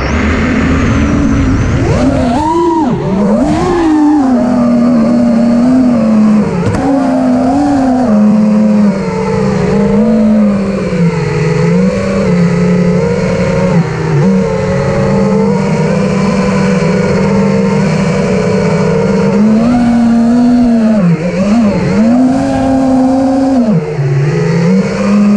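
Armattan Rooster racing quadcopter in flight, its Brotherhobby Returner R6 brushless motors spinning HQ 5.1x4.6x3 tri-blade props in a loud, steady whine. The pitch swoops up and down as the throttle is punched and eased, with a sharp rise and fall a couple of seconds in.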